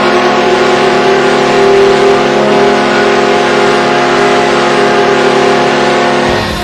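Buffalo Sabres arena goal horn sounding one long, steady, loud blast of several tones at once. It cuts off about six seconds in as the goal song starts.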